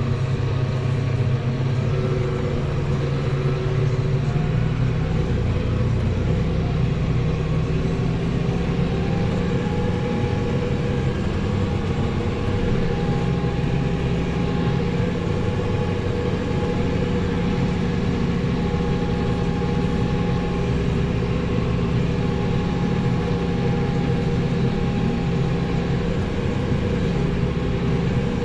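Heavy diesel engine running steadily, a constant low drone with a faint steady whine above it.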